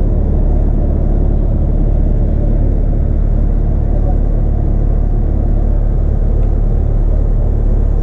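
Steady low rumble of a bus's engine and running noise, heard from inside the passenger cabin.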